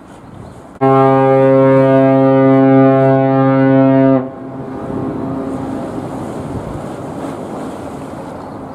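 Container ship's whistle sounding one steady, low blast of about three seconds, starting about a second in and stopping abruptly with a brief echo: a warning to a small fishing boat crossing close ahead of the ship's bow.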